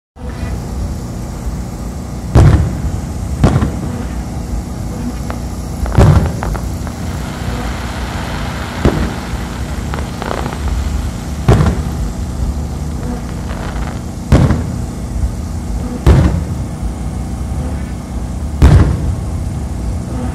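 Aerial fireworks shells bursting, about ten sharp booms at uneven intervals over a steady low rumble.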